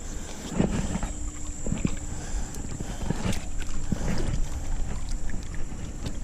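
Wind rumbling on the microphone, with irregular low knocks and handling noises.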